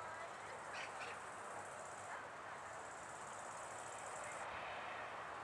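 Faint, steady drone of a Cessna 172R's four-cylinder Lycoming engine and propeller on landing approach, heard at a distance and growing slightly louder. A high buzzing joins in for about two seconds in the middle.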